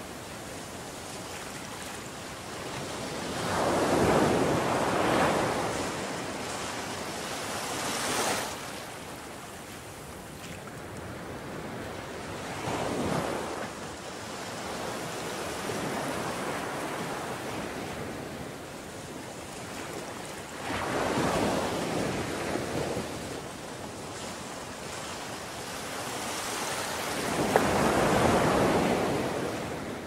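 Sea waves washing onto a beach: a steady hiss of surf with five louder surges as waves break, each rising and falling away over a few seconds.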